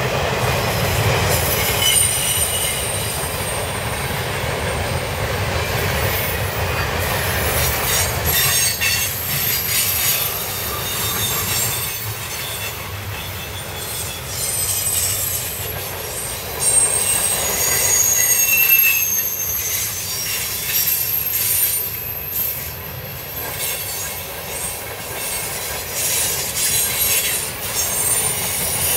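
Freight train's cars rolling past close by: steady wheel rumble and clatter over the rail, with high thin wheel squeals coming and going.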